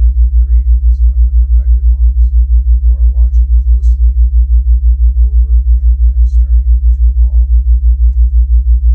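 Low humming theta-wave tone that pulses evenly, about six beats a second.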